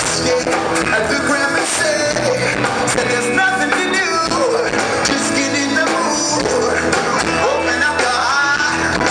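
Live band music: a man singing while strumming an acoustic guitar, with electric bass underneath.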